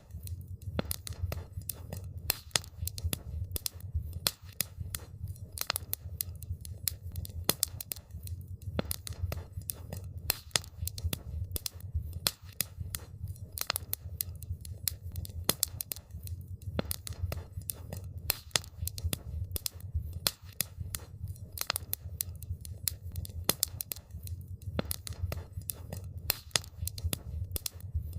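Wood fire crackling and popping: many sharp, irregular snaps over a steady low rumble of burning.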